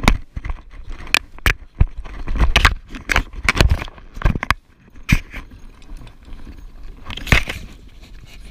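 Handling noise from a camera being moved about and brushed against dive gear: a run of irregular knocks, scrapes and rubbing.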